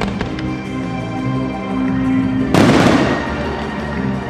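Fireworks display with music playing. There are a couple of sharp cracks early on, then a loud rushing burst about two and a half seconds in that fades within a second.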